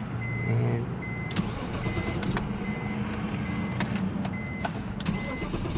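2002 BMW 325xi being cranked over, a low steady rumble with scattered clicks, while a dashboard warning chime beeps about twice a second. The engine catches right at the end, with a sudden jump in loudness.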